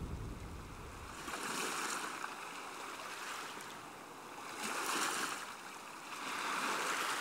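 Sea waves washing in, a rushing noise that swells and fades three times a few seconds apart.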